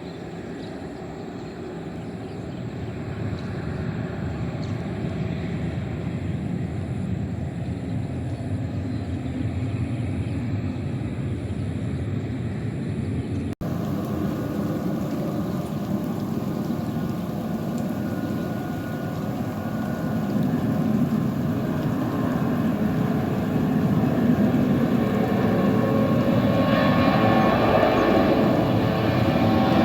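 Airliner engines running in a steady, dense noise that builds louder over the last several seconds, typical of an aircraft on its takeoff run. There is a brief dropout about halfway through.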